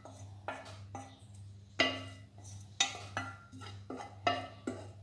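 A wooden spoon scraping and knocking against a stainless steel saucepan: a run of sharp, ringing clanks, the loudest about two seconds in, as shredded chicken filling is scraped out of the pan. A steady low hum runs underneath.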